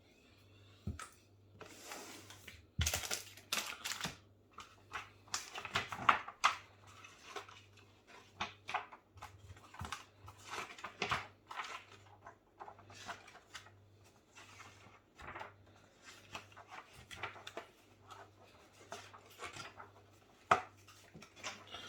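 Plastic snack packaging crinkling and rustling in irregular bursts as the packets are handled and turned over.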